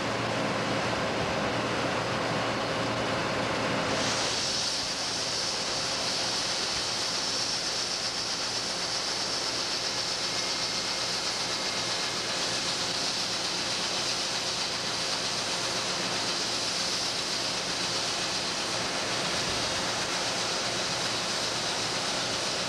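John Deere combine running steadily while it unloads harvested soybeans through its unloading auger into a grain truck. A louder steady hiss of grain pouring into the truck box sets in about four seconds in.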